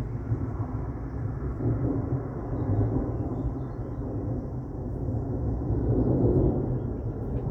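Distant thunder rolling in a long, low rumble that swells about six seconds in.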